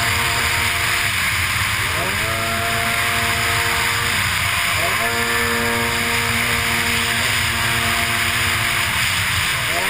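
Racing runabout jetski engine running hard under a steady rush of wind and water. Its note drops and climbs back up three times: about two seconds in, about five seconds in, and near the end.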